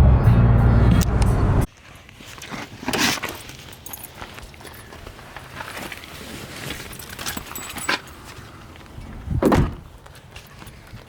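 Background music with a steady beat that cuts off suddenly after about two seconds. Then comes quieter outdoor sound with faint clicks and two brief whooshing swells, one soon after the cut and one near the end.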